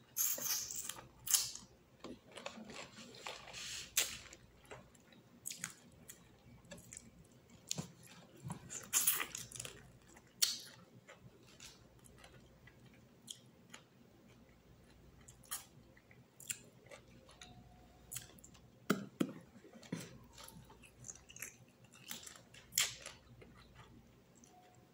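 Close-up eating sounds of a person chewing shrimp: wet mouth smacks, chewing and occasional crunches, with many short, irregular clicks.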